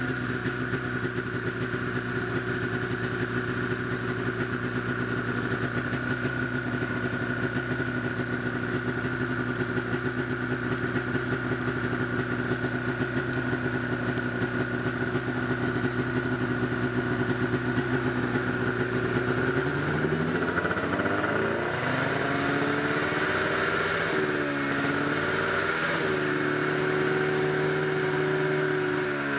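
Arctic Cat 600 EFI two-stroke twin snowmobile engine, exhausting through a stock Polaris 800 muffler, running at a steady idle just after being pull-started. About twenty seconds in the engine speed rises and wavers for several seconds, then holds at a higher, steady speed.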